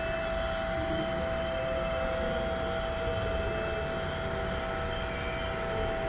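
Hydraulic-drive standing seam roll forming machine running, a steady whine over a low rumble.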